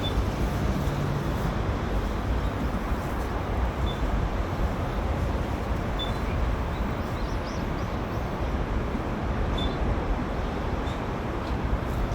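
Skywell Leone EV electric bus pulling away, with a steady low rumble of road and traffic noise rather than an engine note, and a few brief high chirps.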